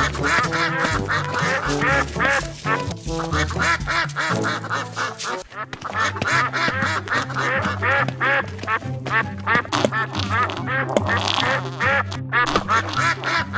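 Ducks quacking in quick runs of many calls, over background music with a steady bass beat.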